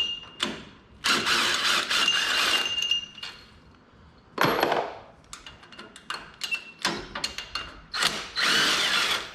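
Cordless power driver with a socket spinning out the cylinder head bolts of a Kohler Courage 19 engine. It runs in three spurts, about two seconds, half a second and a second and a half long, with metallic clicks of socket and bolts between them.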